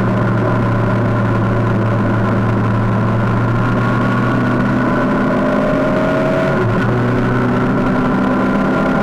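Motorcycle engine running at steady revs: a constant drone heard from the bike-mounted camera while riding.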